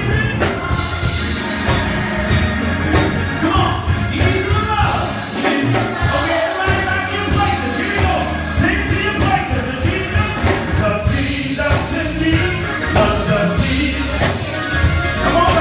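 Live gospel worship music in a church: voices singing over a band led by keyboard, with a strong, steady bass.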